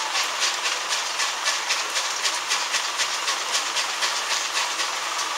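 Steam locomotive working hard, its exhaust chuffing in a steady rhythm of about three beats a second, with a hiss of steam; the beats grow fainter near the end.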